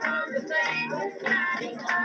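Gospel singing with instrumental accompaniment.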